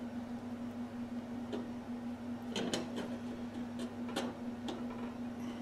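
Light metal clicks and taps, about seven of them spread through the middle, as a steel whirligig blade is handled and set against its hub on the workbench, over a steady hum.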